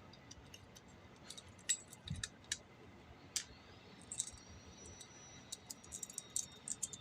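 Pole saw chain clinking as it is worked onto the guide bar: scattered, irregular light metallic clicks and rattles, faint.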